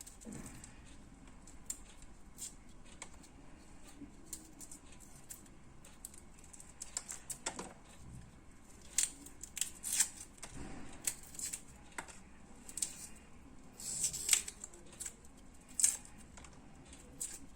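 Garlic cloves being peeled by hand: scattered small clicks and crisp, papery crackles of the skin, irregular and more frequent in the second half.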